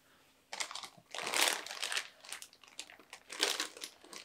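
Clear plastic shipping bag crinkling as hands open it and reach in to pull out a bare-root anthurium. The crinkling comes in irregular bursts, starting about half a second in.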